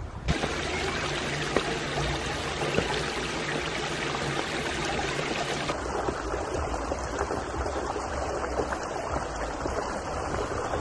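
Shallow rocky stream running steadily over stones.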